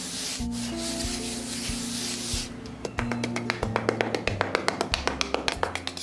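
Small hand trowel scraping and spreading damp sand, a dense rasping scrape for the first two and a half seconds, then a run of quick light taps in the second half, all over background music with held notes.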